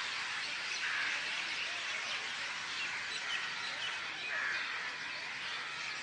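Many wild birds chirping and calling at once, a dense, steady chorus of overlapping chirps from the trees.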